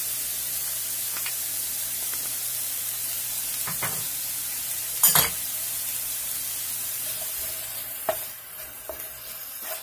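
Chopped onion and garlic sizzling in hot oil in a non-stick frying pan as they begin to brown, with a wooden spatula knocking and scraping against the pan a few times, loudest about five seconds in. The sizzle thins out near the end.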